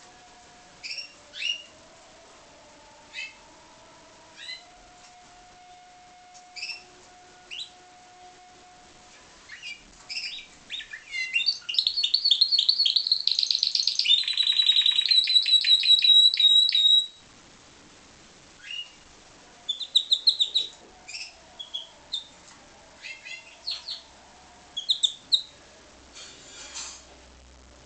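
Pied Spanish Timbrado canary singing. Short, scattered high chirps build into a loud, rapid trill about eleven seconds in. The trill settles into an even rolling pulse for a few seconds, then breaks off into more short chirps and brief trills.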